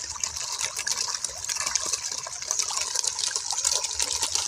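Pond water splashing as a crowd of koi jostle at the surface: a steady wash of many small, quick splashes.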